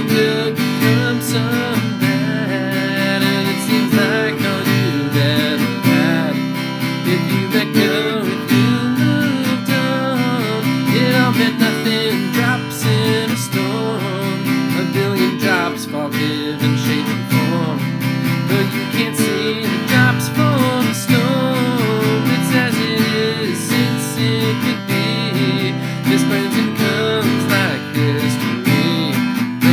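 Acoustic guitar strummed in a steady rhythm, an instrumental passage of the song without singing.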